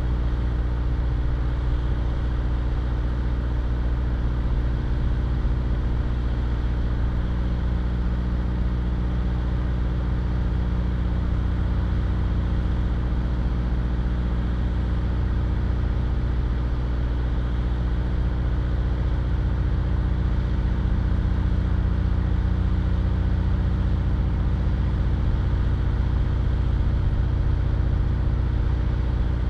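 A vehicle engine idling steadily with a low hum and rumble, the vehicle standing still. A further steady hum tone comes in about seven seconds in.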